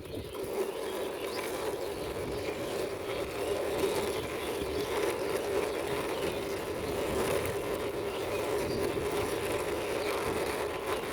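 Plastic wheels of a toy car rolling steadily along the ground as it is pushed by hand.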